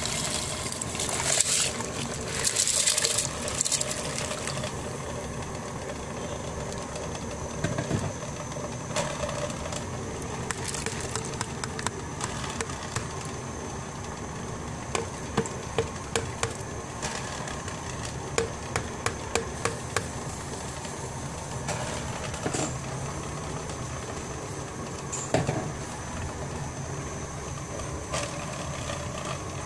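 Dry black lentils pour from a plastic bowl into a pot of water for the first few seconds with a rushing splash. After that there is steady background noise with scattered sharp clicks, a run of several close together about halfway through.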